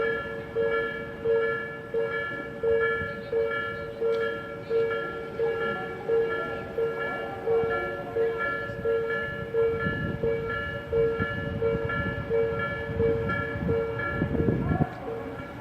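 Japanese railway level crossing alarm ringing over and over, an even ding about one and a half times a second, as the crossing stays closed. A train's rumble rises under it from about ten seconds in.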